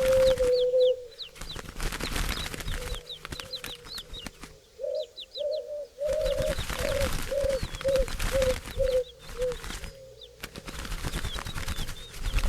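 A bird soundtrack: a low call repeated as a run of short notes that grow shorter, over many quick high chirps from small birds, with stretches of noisy rustling.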